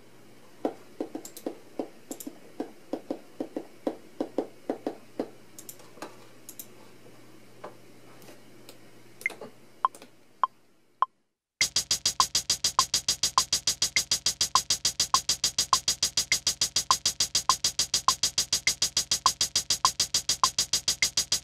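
Electronic beat played on a Native Instruments Maschine drum controller. For the first ten seconds there are sparse, quieter drum hits over a low hum, with a few rising note blips. Then, after a brief gap, a loud, fast, steady electronic pattern with a repeating high note starts abruptly.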